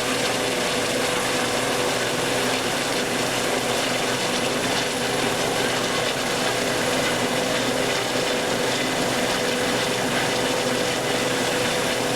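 A machine running steadily with a constant hum, loud and unbroken throughout.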